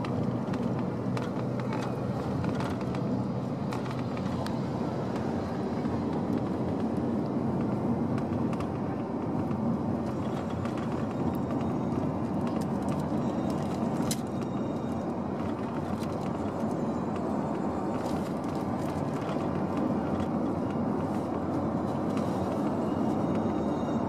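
Steady road and engine noise inside a taxi's cabin while it cruises along an expressway, an even low rumble of tyres and engine.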